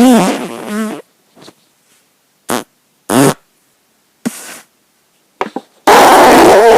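A run of separate human farts with silence between them. The first is about a second long with a wavering, warbling pitch. Several short ones follow, and near the end comes a long, loud, raspy one.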